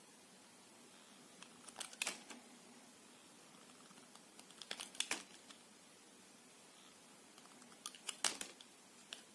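A knife cutting soft soap in crisp, crackly strokes, coming in three short clusters about three seconds apart.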